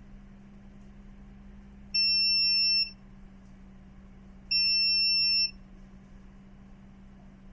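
Multimeter continuity beeper sounding twice, each a steady high beep just under a second long. The probes are finding continuity to ground on a console board line that should not be grounded, a sign of a short circuit. A faint steady hum sits underneath.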